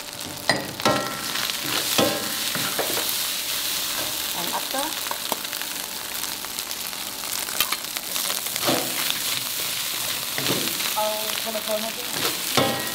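Squid fried rice sizzling in a wok over a gas flame, a steady frying hiss, while a metal spatula stirs it and scrapes and knocks against the wok every few seconds.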